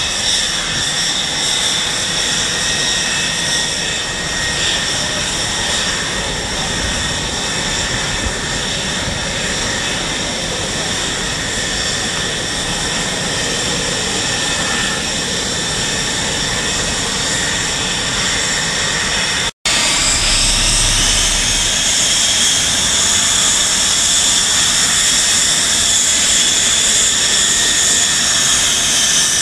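Dassault Mirage F1's Atar turbojet running as the fighter taxis, a steady jet roar with a high, multi-toned whine. After a brief dropout about two-thirds through, it comes back a little louder, its whine rising slightly in pitch before holding steady.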